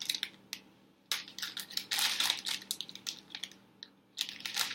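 Food packaging and containers being handled: plastic crinkling and crackling with light clicks and knocks, in a few short clusters with quiet gaps between.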